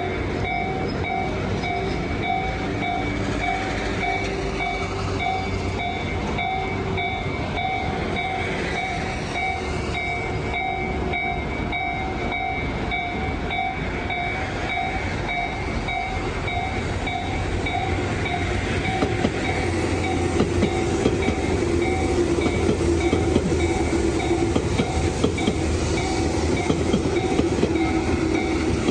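Japanese level-crossing warning bell ringing in a steady repeating 'kan-kan'. A passing train's rumble and wheel clatter grow louder over the second half.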